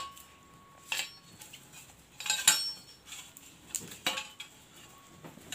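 Metal motorcycle exhaust parts (the header pipe and its fittings) knocking and clinking together as they are handled: several sharp metallic clinks, some with a brief ring.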